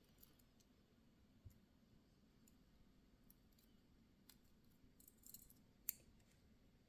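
Faint, scattered small clicks of tools and lock parts being handled while a Goal P lock core is taken apart pin by pin, the sharpest click about six seconds in.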